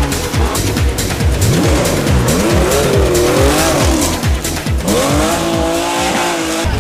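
Rally Porsche 911's flat-six engine revving up and down as the car slides through a bend, over a backing track with a steady pounding beat.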